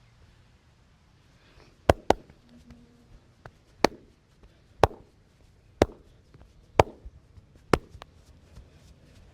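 Massage percussion: sharp smacks of hands striking the body, a quick double smack about two seconds in, then five more evenly spaced about one a second.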